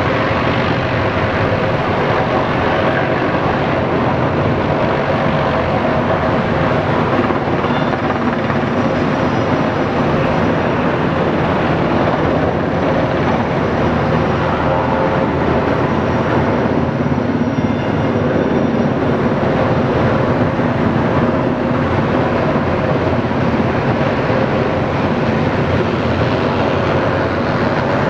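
Military helicopter flying over the city: a steady rotor and engine noise that holds level throughout.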